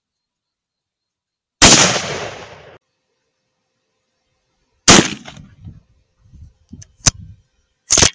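.308 Winchester rifle firing: a sharp shot about a second and a half in that dies away over about a second, a second shot about five seconds in, then lighter clicks and another sharp crack near the end.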